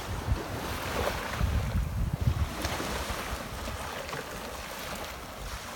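Waves washing on the shore, with wind buffeting the microphone in gusts.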